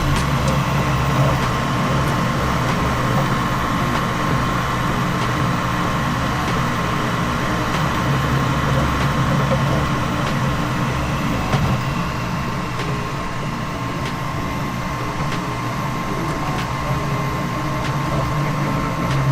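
3D printer running: a steady hum of fans and motors with a constant high tone.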